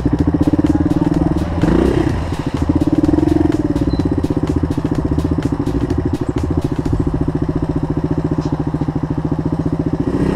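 Suzuki DR dirt bike's single-cylinder four-stroke engine idling with a steady, rapid beat, with one short blip of the throttle about two seconds in.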